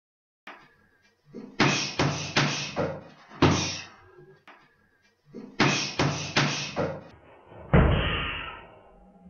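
Boxing gloves smacking hand-held pads in quick sets of three, each set followed by a heavier kick into the pads: a cross, hook, cross and side kick combination done twice. The final kick lands with a deep thud.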